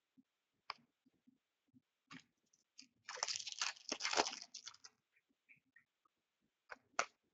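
Crinkling and tearing of hockey card packaging being opened by hand. A few light clicks come first, then about two seconds of dense crinkling in the middle, and two more clicks near the end.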